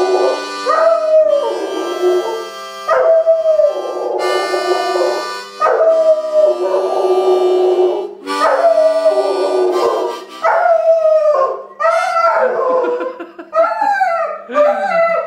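A German Shepherd howls along to harmonica chords, long wavering howls gliding over the sustained reedy notes. In the last few seconds the howls come as a quick run of short rising-and-falling notes.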